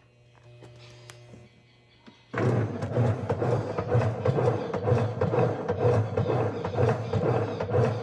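Top-loading washing machine starting its agitation cycle about two seconds in: the belt-driven motor and transmission run with a steady hum and a rhythmic low pulsing as the agitator swings back and forth, after a faint hum before it starts.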